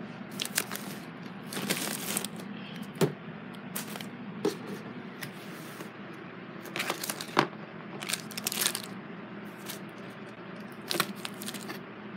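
Plastic wrapping and bags crinkling in short, scattered rustles and clicks as packaged squishies are handled and shifted about, over a steady low hum.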